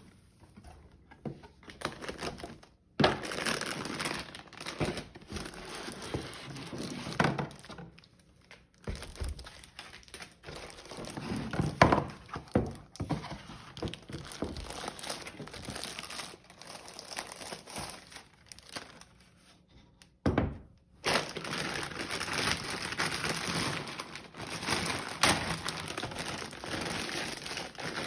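A PC power supply being unboxed: packaging crinkling and rustling in irregular spells, with a few thunks as the box and parts are handled.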